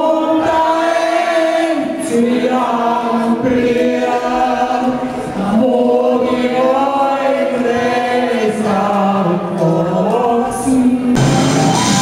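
A group of voices singing long held notes together in chorus over music. About a second before the end the music changes to a louder, fuller section.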